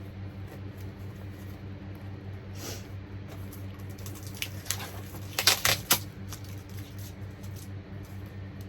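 Packaging being handled: scattered crinkles and clicks, with a short burst of sharp crackling about five and a half seconds in, over a steady electrical hum.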